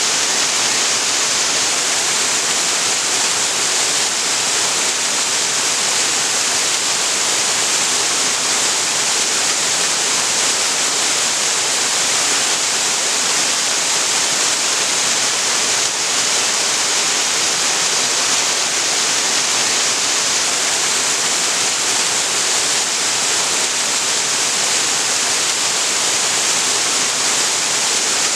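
Waterfall splashing steadily onto rocks and into the creek, an even rushing hiss with no breaks.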